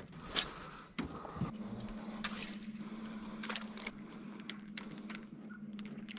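Electric trolling motor humming steadily as the boat moves slowly, with a brief dip in the hum about a second in. Water sloshes around the boat and small clicks and knocks come through on top.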